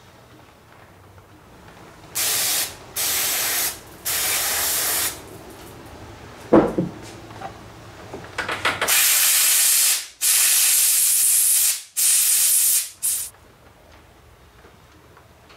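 Compressed air blowing through the passages of a Stihl chainsaw carburetor in short blasts: three bursts of about a second each, a single sharp knock midway, then four more bursts, the longer ones about a second and a half.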